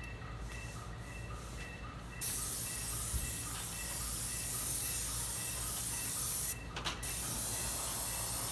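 Airless paint spray gun spraying paint with a steady hiss that starts suddenly about two seconds in, stops for about half a second as the trigger is released, then starts again.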